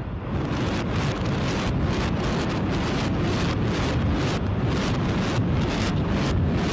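Building implosion by explosive demolition: a heavy, continuous rumble with a dense run of sharp cracks, about three a second, whose high crackle cuts off suddenly at the end.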